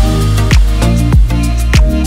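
Electronic background music with a steady kick-drum beat, about two beats a second, over held bass notes.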